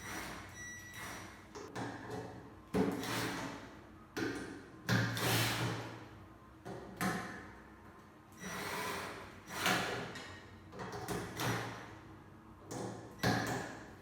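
Metal parts of an LED high bay lamp being handled during assembly: a series of knocks and scrapes, about one a second, each dying away over a second or so.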